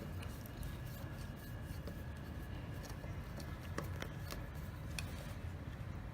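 Scattered light clicks and scrapes of small hardware being handled, with a few sharper clicks about four and five seconds in, over a low steady room rumble.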